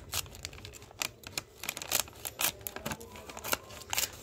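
Scissors snipping through the top of a plastic snack packet: a run of irregular, crisp clicks, several a second, with the film crinkling between cuts.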